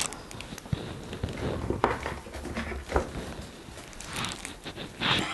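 Scattered handling noises: a few sharp knocks and light rustling, with a hissy rustle near the end.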